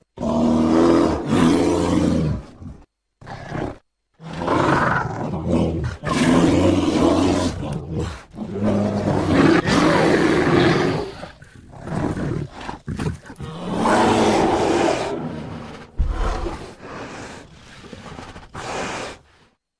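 Loud animal calls, repeated in stretches of a few seconds, each breaking off abruptly.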